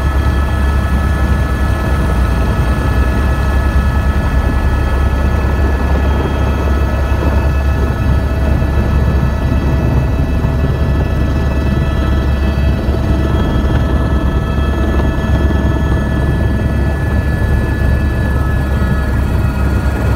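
Helicopter in flight, its engine and rotor running steadily: a loud, unchanging deep drone with a constant high whine above it.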